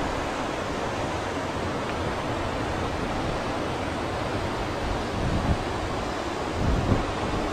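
Valley stream rushing over rocks: a steady, even wash of water noise, with two brief low buffets of wind on the microphone about five and a half and seven seconds in.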